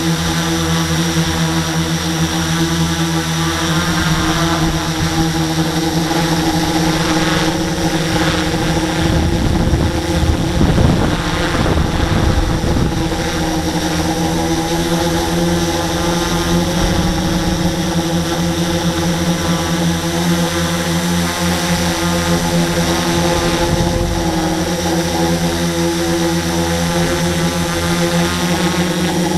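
Electric motors and propellers of a radio-controlled model aircraft, heard from its onboard camera: a steady multi-tone buzz that holds an even pitch. Wind buffets the microphone in gusts around the middle.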